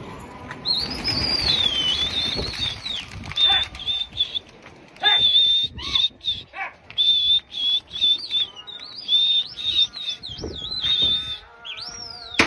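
Domestic pigeons' wings flapping in short irregular bursts as birds take off and land, over a high whistling tone that wavers and glides up and down.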